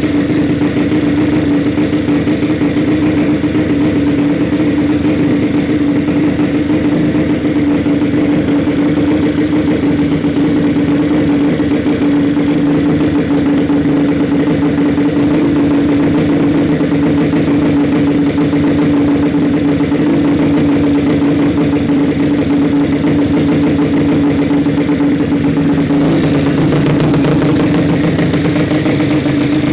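Suzuki Nex scooter's single-cylinder four-stroke engine, tuned up to 130cc, running steadily at an even speed, like a fast idle. A few seconds before the end its tone changes.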